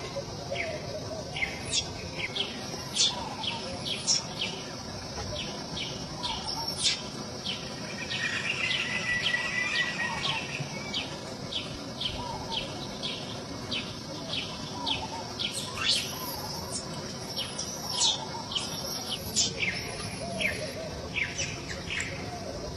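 Animal chirps: many short, high-pitched downward-sweeping chirps, about two a second, over a steady high hiss.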